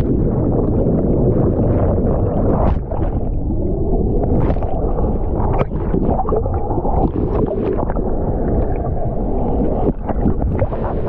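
Loud, steady rush of a waterfall, heavy in the low end, with scattered clicks and knocks over it.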